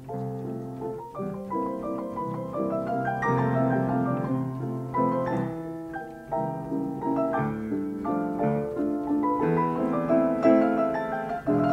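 Ampico Lexington upright player piano playing an 88-note paper music roll: a continuous run of chords and melody notes.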